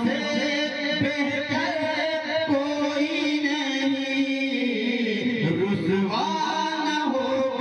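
Male voice singing a naat through microphone and PA loudspeakers, drawn out in long held notes without clear words, the pitch bending down and back up about five seconds in.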